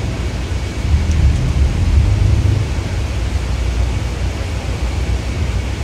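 Steady low rumble with a rushing hiss, from the tour boat underway in the lock chamber: wind on the microphone over the boat's motor.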